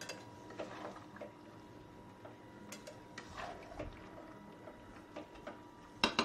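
Spiced chicken simmering in its own released juices in a pan: a faint sizzling bubble with scattered light ticks, then a quick run of sharp clinks against the pan about six seconds in.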